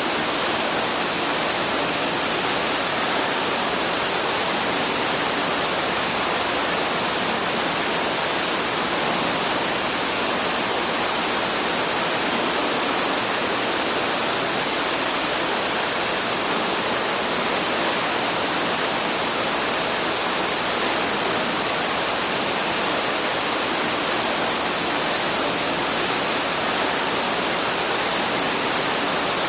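Waterfall: a steady, even rush of falling water, strongest in the high range, with no birdsong standing out.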